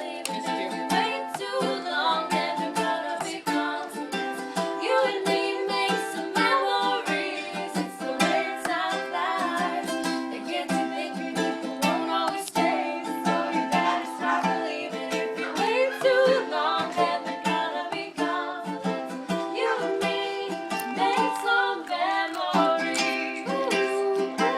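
Ukulele music with a steady strummed rhythm and a voice singing over it.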